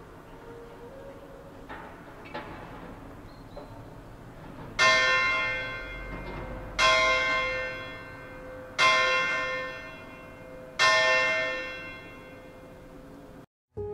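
A large bell strikes four times, evenly about two seconds apart, each stroke ringing on and fading away before the next.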